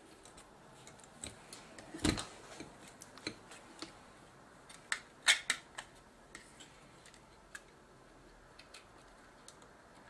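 Scattered small clicks and taps of fingers fitting a cable into a connector on the JVC GY-HD201E camcorder's circuit board. The sharpest knock comes about two seconds in and a cluster of clicks just past five seconds, with lighter ticks after.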